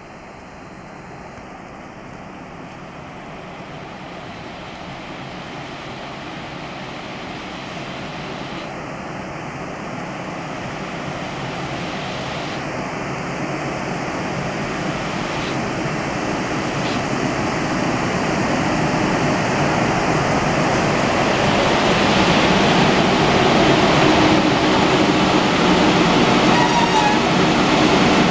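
ChS7 electric locomotive hauling a passenger train, drawing into a station stop. Its running noise, wheels on the rails and the locomotive's machinery, grows steadily louder as it approaches and passes close by.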